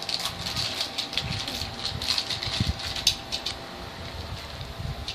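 Plastic toy wrapper crinkling and rustling in a child's hands, with a few low handling bumps. The crinkling fades out a little over three seconds in.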